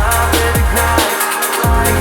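Electronic drum-and-bass music with a fast, steady beat and heavy bass. The bass drops out briefly just past the middle and then returns.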